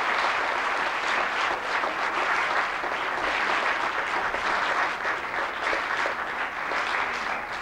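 Church congregation applauding, a steady dense clapping that starts to fade near the end.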